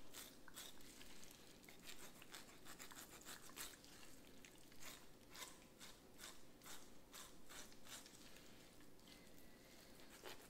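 Faint, irregular crisp strokes of a knife slicing through the fat cap of a raw pork butt, several a second.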